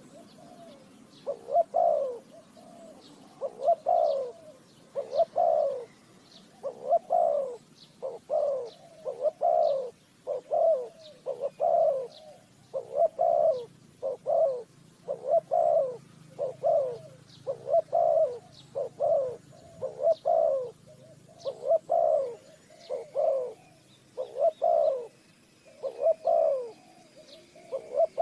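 Spotted dove cooing over and over, a low hooting phrase about once a second. Faint short high chirps from small birds behind it.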